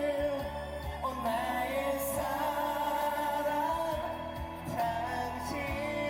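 Pop ballad music, singing over instrumental accompaniment with long held notes.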